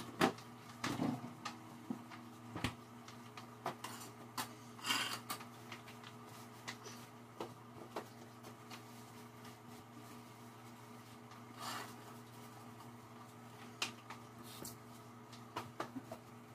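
Kitchen handling noises: scattered knocks and clatter of utensils and cookware, with brief scraping about five seconds in and again near twelve seconds, over a steady low electrical hum.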